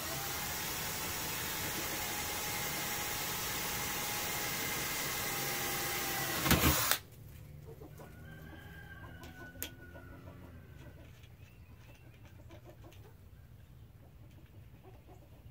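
Cordless drill running steadily as it bores a pilot hole through a personal watercraft's fiberglass deck, ending in a short loud knock about seven seconds in. After the drill stops, a rooster crows in the background, with a few light clicks.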